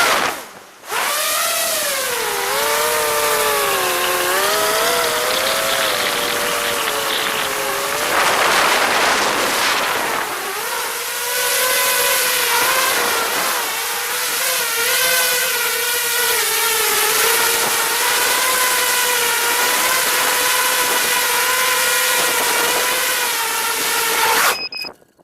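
FPV drone's electric motors and propellers whining. The pitch rises and falls with the throttle, then holds fairly steady through the second half. The sound drops out briefly just after the start and cuts off suddenly near the end.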